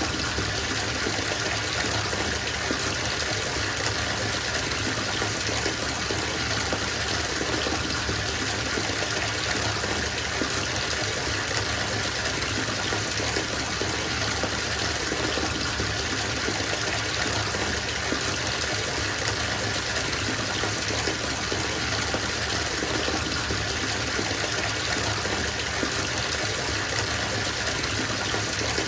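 Water gushing steadily from a bathtub tap into a filling tub, an even unbroken rush of water.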